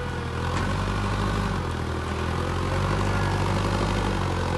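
Forklift engine running steadily as the forklift drives forward carrying a heavy crate.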